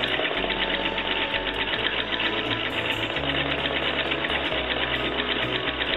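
National Two Spool treadle sewing machine stitching steadily at speed, its needle and mechanism clattering in a rapid, even run of ticks, during free-motion quilting with the feed dogs set to zero.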